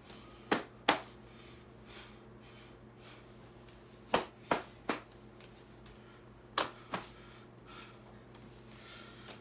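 Short sharp slaps in small groups (two about half a second in, three around four seconds in, two more at about seven seconds) as a barefoot person turns in place on a tile floor, over a faint steady hum.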